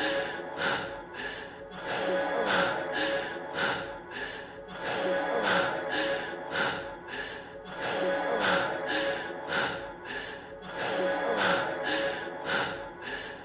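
A man's heavy, rapid breathing, a studio recording: quick loud breaths in and out, roughly one every half second to a second, the panting of someone out of breath. The same short stretch repeats every few seconds as a loop, over a faint held musical tone.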